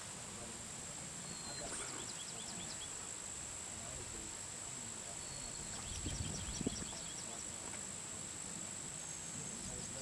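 Quiet outdoor sound with a steady high-pitched whine throughout. Two short runs of quick, high ticks, one about two seconds in and one around six seconds in, are joined by a couple of low bumps near six to seven seconds, the loudest moment.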